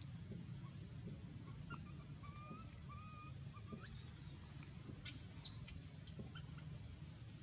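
Baby macaque giving faint, short, high whimpering cries, several in a row about half a second to a second apart, over a low steady hum.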